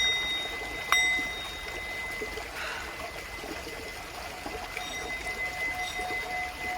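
Singing bowl struck about a second in, ringing on with several clear tones that slowly fade; in the second half its tone comes back in a pulsing waver. A stream trickles steadily underneath.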